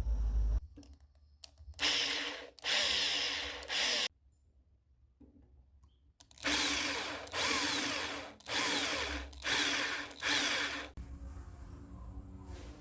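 Power drill boring into wood in short bursts: two, then after a pause of about two seconds, five more in quick succession.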